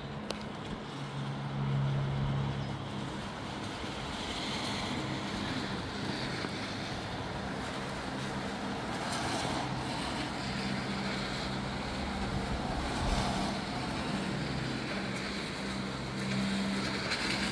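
Outdoor ambience in light rain and breezy wind: a rushing hiss that swells several times over a steady low hum, with no speech.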